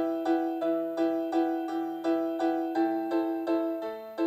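Instrumental break in a sung song: a piano-like keyboard plays an even run of notes, about three a second, one note repeating through the figure while others change around it.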